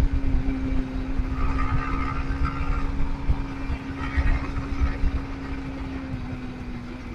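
Motorcycle engine running at a steady pitch while riding, over a low rumble; the pitch drops slightly about six seconds in.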